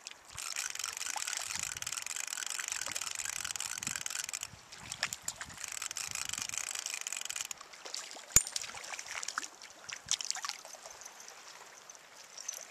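Fishing reel being cranked while a small trout is played in: a steady whirring hiss in two runs with a short pause between. Scattered light clicks follow, with one sharp click about eight seconds in.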